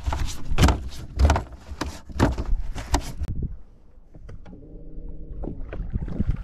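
Knocks and thumps on a boat deck as things are handled, about two a second for the first three seconds. Then it goes quieter, with a short low hum of steady tones near the end.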